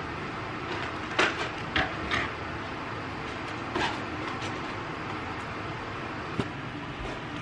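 Household objects being picked up and set down on a wooden dresser top: a few short knocks and clatters, clustered in the first couple of seconds and again near four seconds, over a steady background hiss.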